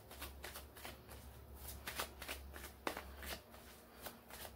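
A tarot deck being shuffled by hand: a run of soft, irregular card clicks, about three a second.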